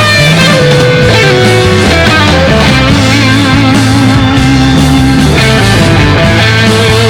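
Background rock music with guitars and a steady bass line.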